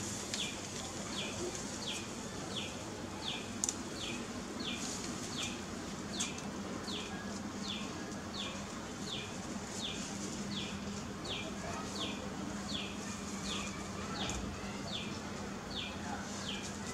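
A bird calling steadily: a short, falling, high note repeated about twice a second.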